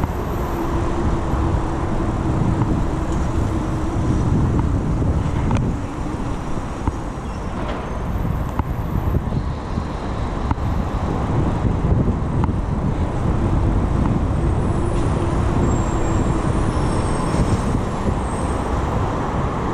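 Steady low rush of wind over a chest-mounted GoPro as a mountain bike rolls along a cycleway, with road traffic noise underneath.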